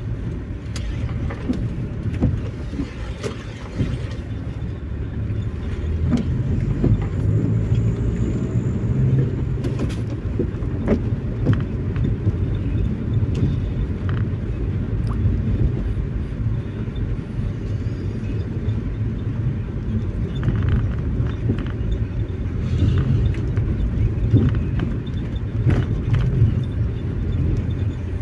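Steady low rumble of a car driving, heard from inside the cabin: engine and road noise, with a few faint clicks.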